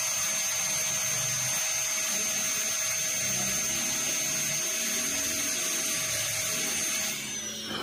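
High-speed dental handpiece cutting a practice-model tooth during a Class II cavity preparation: a steady high-pitched whine over hiss. About seven seconds in, the handpiece is released and the whine glides down as the turbine spins down.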